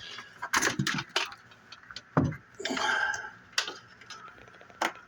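Irregular clicks and knocks of hard plastic objects being handled, with a low thump about two seconds in, a brief scraping rustle just after it, and a sharp click near the end.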